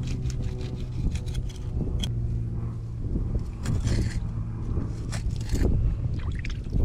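A steady low engine hum with irregular sharp knocks and scrapes over it.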